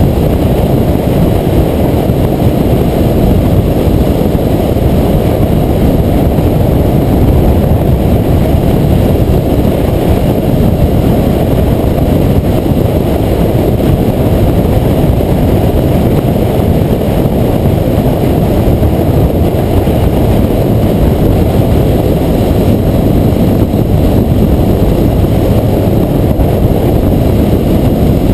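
Loud, steady wind rumble on the microphone of a camera on a BMW R1200R being ridden at road speed, mixed with the motorcycle's running and road noise.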